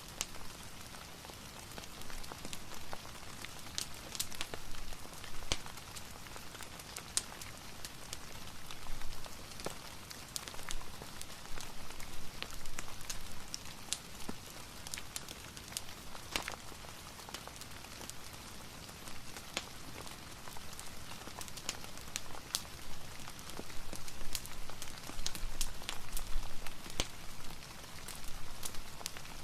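Steady rain, an even hiss, mixed with a crackling wood fire whose sharp pops and snaps are scattered through it.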